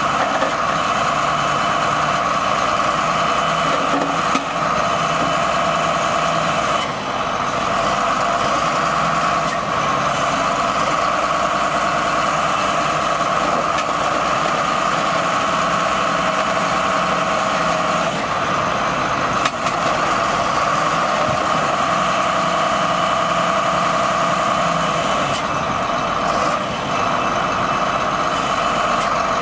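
1992 John Deere 770BH motor grader's diesel engine running steadily near idle, with a constant high whine above the engine note.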